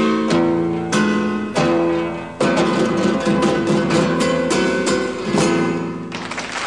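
Background music of plucked guitar chords, struck anew every second or so and ringing on between strokes.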